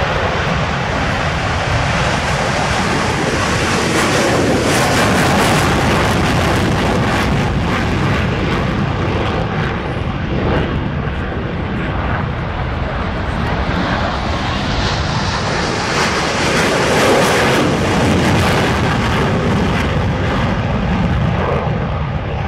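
F/A-18 Hornet's twin General Electric F404 jet engines in afterburner on takeoff: a loud, steady jet roar that swells twice, around four to eight seconds in and again around fifteen to nineteen seconds in.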